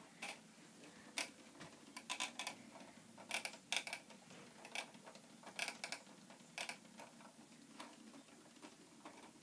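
Faint, irregular light plastic clicks and taps, some in short quick clusters, from the plastic tubes and chambers of a Hexbug nano habitat set.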